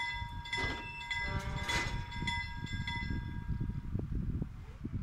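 LM Ericsson KLD-43 mechanical level-crossing bells striking a ringing tone a little over every half second, fading out about three and a half seconds in. Under them runs the low rumble of the moving narrow-gauge train.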